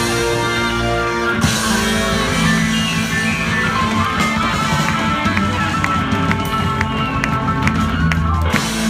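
Live band playing: electric bass, drums, keyboard and saxophone. Held chords give way to a new figure about one and a half seconds in.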